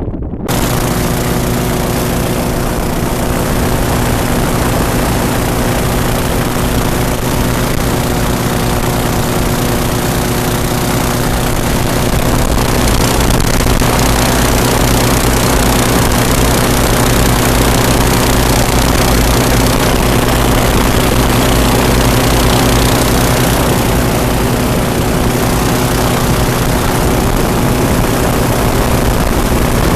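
Twin-engine airboat's engines and propellers running steadily, with a stack of even engine tones, getting slightly louder about twelve seconds in.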